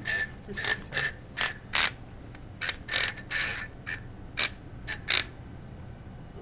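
Small hobby electric motors driving plastic gears on a wooden student robot. A motor whine fades in the first second, then irregular rattling clicks from the gears go on for about five seconds and stop.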